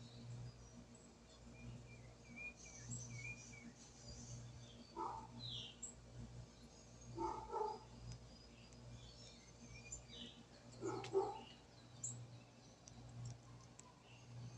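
Birds calling intermittently: short, high, downward chirps and wavering calls, with louder, lower-pitched calls every few seconds over a faint steady hum.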